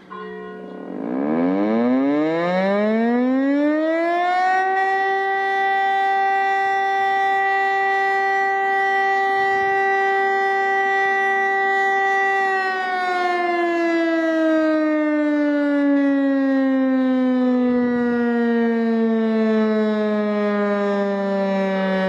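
Rooftop electromechanical civil-defence siren, a mushroom-shaped rotating type, sounding a test alarm. It spins up about a second in, its howl rising to a steady pitch after about four seconds, holds there for about eight seconds, then slowly winds down, falling in pitch.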